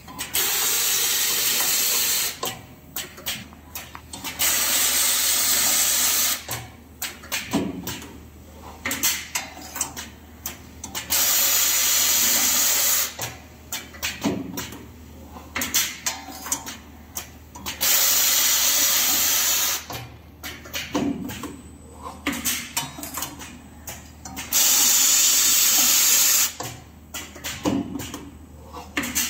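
Automatic diamond saw blade laser welding machine working through its cycle: a steady gas hiss lasting about two seconds, five times, roughly every six and a half seconds, with clicks and clunks of the clamps and blade fixture moving in between.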